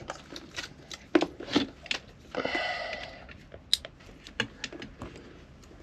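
Irregular light clicks and taps of small parts and tools being handled during radio wiring work, with a short rustling noise about two and a half seconds in.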